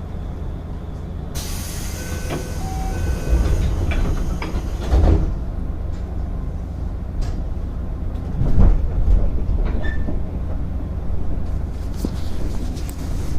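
JR 205 series 0 electric train running: a steady rumble of wheels on rail, with a few heavy thumps and clicks over the track and a brief hiss partway through. Near the end a rising whine sets in.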